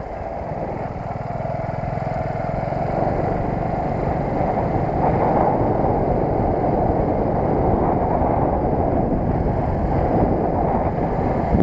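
JSD100 underbone moped's engine running while riding, mixed with wind rushing over the microphone; it grows louder over the first few seconds and then holds steady.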